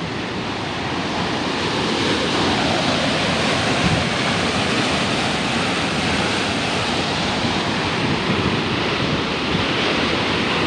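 Muddy canal water rushing and churning out beneath a gate, a steady rush of white water with no let-up.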